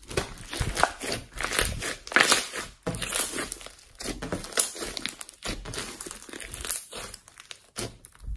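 Slime being squeezed, stretched and poked by hand, giving a dense, irregular run of crackling and popping clicks.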